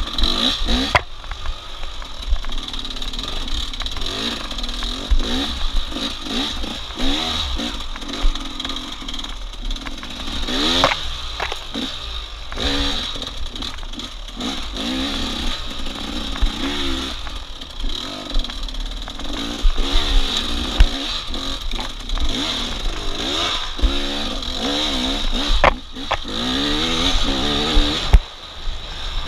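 A racing engine revving hard, its pitch climbing and falling again and again every second or two as the throttle is worked, with clattering over it and a few sharp knocks near the end.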